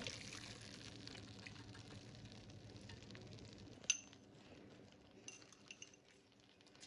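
Faint sound of thick sauce being poured from a saucepan into a slow cooker's plastic liner over pulled pork. About four seconds in there is a single sharp clink, followed by a few light taps.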